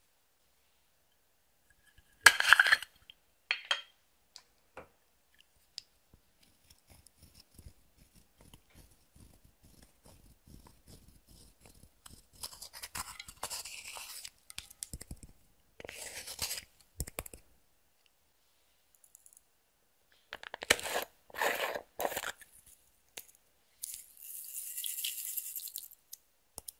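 Close-up handling sounds of making slime with makeup and glitter: separate bursts of crackling, tearing noise with quiet ticks between them. The loudest burst comes about two seconds in, and a longer high hiss comes near the end.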